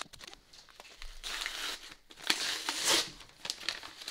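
Paper wrapping being torn and crumpled off a book, in irregular rustling bursts with sharp crackles, loudest from about a second in to three seconds in.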